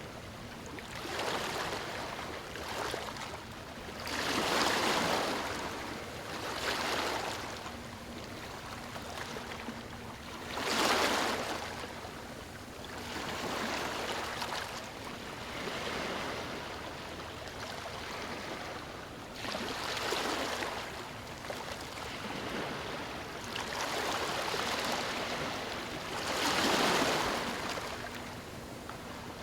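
Waves breaking onto a stony shore, each one swelling into a rush of water and draining back, every few seconds; two of them, about eleven seconds in and near the end, are the loudest.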